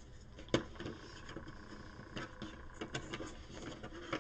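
Faint handling noises: plastic board-game card holders clicking and tapping against the box's insert tray as they are pushed back into place, with one sharper click about half a second in and scattered small clicks after.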